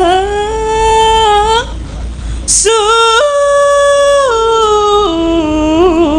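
A sinden, a female Javanese gamelan singer, sings a slow solo line through a microphone: long held notes with small ornamental turns of pitch. There is a short break about two seconds in, then she sings on.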